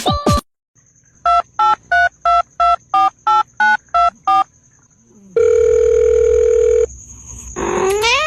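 Telephone keypad dialing: about ten short two-note touch-tone beeps in an even row, then a steady phone tone for about a second and a half. A short rising call follows near the end.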